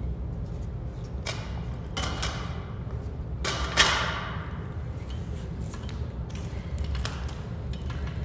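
A few scattered thumps and knocks, the loudest a sharp one about four seconds in, over a steady low hum.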